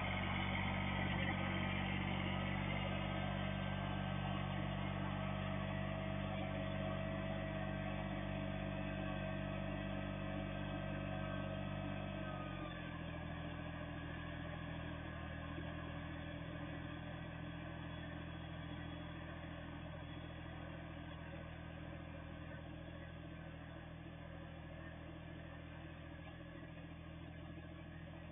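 Kubota compact tractor's three-cylinder diesel engine running steadily and fading as the tractor drives away. About twelve seconds in, the engine note drops a little and a thin whine above it stops.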